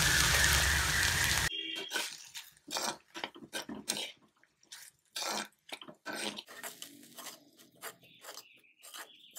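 Chopped banana flower sizzling in hot oil in a clay pot. The sizzle cuts off abruptly about a second and a half in. After that, a steel spoon stirs and scrapes the vegetables against the clay pot, making irregular clicks and scrapes.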